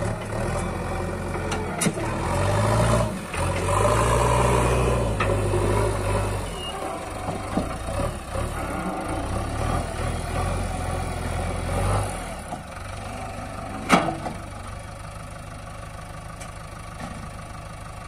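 JCB backhoe loader's diesel engine running as the machine drives and works in the dirt, revving up for a few seconds, then settling to a quieter, steady run about two-thirds of the way through. A single sharp knock comes soon after.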